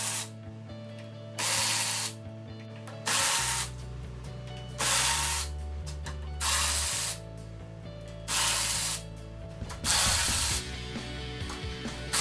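Hand ratchet with a long extension loosening the 8 mm anchor bolts of a Toyota Prius hybrid battery pack. Its pawl clicks in six even bursts, each about half a second long and about every second and a half, over low background music.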